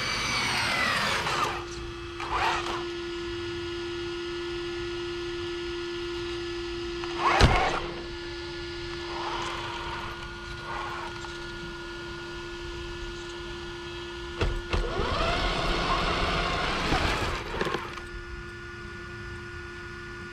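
Electric motor of a radio-controlled model car whining as it spins down, then a steady hum with one sharp, loud knock about seven seconds in. Near the end the motor whines up and back down again for a few seconds.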